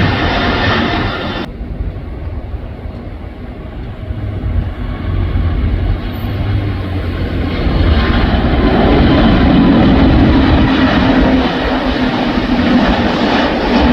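Jet airliner engine noise. It cuts off suddenly about a second and a half in to a quieter rumble, which swells again from about eight seconds into a loud steady roar with a low drone.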